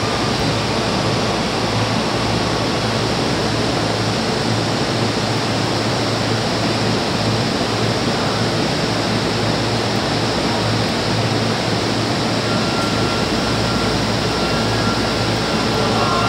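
Steady hiss and low hum from a stationary Sotetsu electric commuter train at a platform, its air-conditioning and onboard equipment running while it waits to depart. A faint thin high tone comes in about twelve seconds in.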